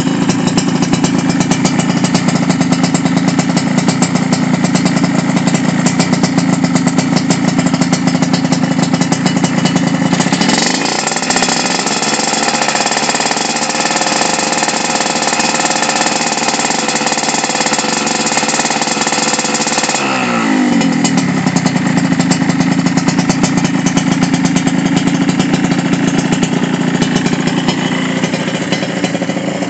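Yamaha RX-King's two-stroke single-cylinder engine running through an aftermarket under-frame expansion-chamber exhaust: it idles, revs up and holds high revs about ten seconds in, then drops back to idle about ten seconds later.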